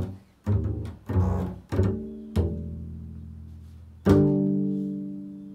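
Double bass played pizzicato: a handful of low plucked notes about half a second to a second apart, then one note about four seconds in left to ring and slowly fade.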